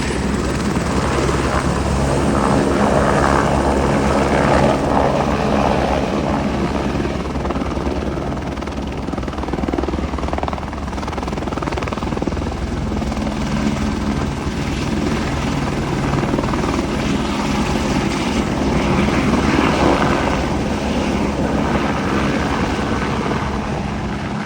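Helicopter running, a steady rotor chop over a low engine drone, growing louder about four seconds in and again near the end.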